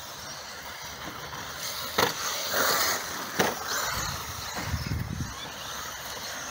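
Radio-controlled model rally cars running around a rough outdoor track, their tyres rolling and scrabbling over the surface. Two sharp knocks come about two and three and a half seconds in.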